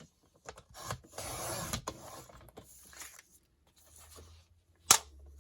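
Thick sheets of paper being handled, rubbing and sliding against each other in a few rasping strokes, then a single sharp tap near the end.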